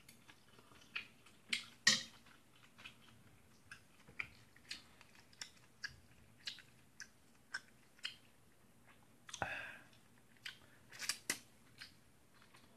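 A person eating from a metal pot: quiet chewing with irregular small clicks and taps of the utensils, and one longer, noisier sound about nine and a half seconds in.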